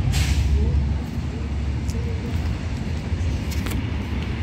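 Wind buffeting a handheld phone's microphone: an uneven low rumble, with a brief rush of noise right at the start.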